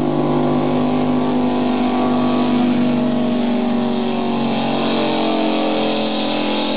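Racing powerboat's outboard engine running at high speed, a steady, loud engine note whose pitch sinks slightly in the second half.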